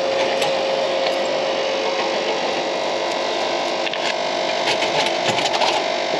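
Frozen-food vending machine dispensing, its mechanism running with a steady hum that fades out two or three seconds in. In the last two seconds come clicks and knocks of the pickup flap and the boxed item being pulled out.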